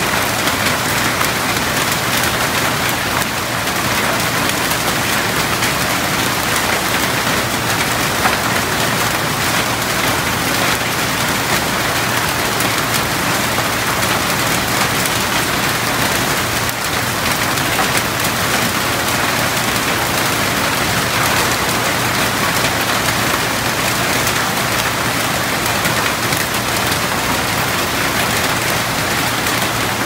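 Heavy rain falling steadily on open water, a dense, even hiss of countless drops hitting the surface.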